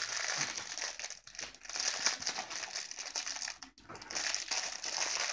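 Thin clear plastic bag crinkling as hands pull and tear open the wrapper around a small toy doll, with a brief pause a little before the end.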